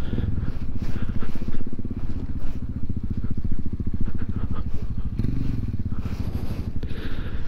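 Royal Enfield Himalayan's single-cylinder engine running at low speed, a steady rapid beat of exhaust pulses, swelling briefly about five seconds in.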